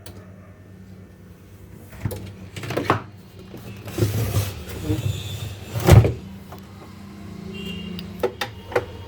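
Scattered clicks and knocks over a faint low hum, with one loud knock about six seconds in.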